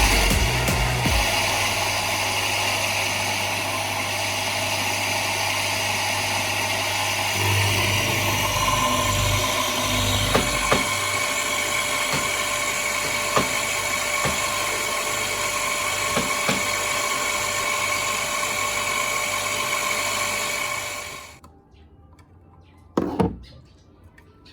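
An electric motor running steadily with a constant hum and whine, then switched off about 21 seconds in; a single knock follows shortly after.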